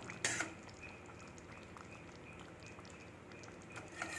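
Mostly quiet, with a light clink of a metal spoon against the steel pan about a third of a second in, and soft spoon clicks near the end as the brinjal gravy is stirred.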